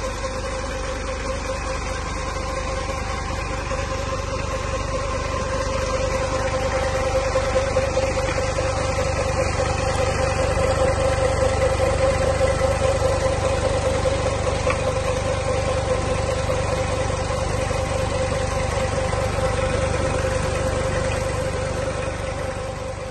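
Massey Ferguson 240 tractor's three-cylinder diesel engine running at a steady speed while driving a water pump by a long flat belt, with a steady hum over the engine noise. It grows a little louder about five seconds in.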